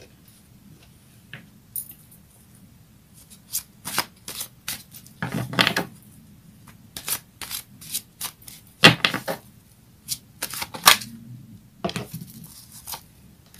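A deck of cards being shuffled and handled by hand: irregular clusters of short card slaps and flicks, the loudest about nine seconds in.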